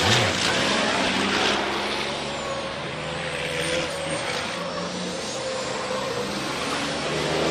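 Race trucks' turbo-diesel engines running at speed on the circuit, a steady engine drone with sharp bursts of hiss in the first second and a half.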